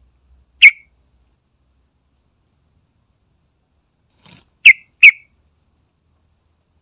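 Yellow-vented bulbul giving three short, sharp whistled calls: one about half a second in, then two in quick succession near the five-second mark.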